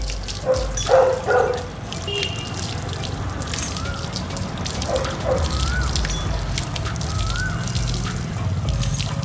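Water from a garden hose splashing and dripping off a dog's wet coat onto concrete: a scatter of small splashes and drips.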